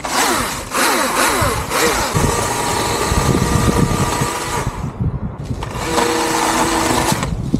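Husqvarna electric chainsaw running as it cuts branches. Its whine sweeps up and down as the trigger is worked at first, then runs steadily. It stops briefly about five seconds in, runs again, and cuts off near the end.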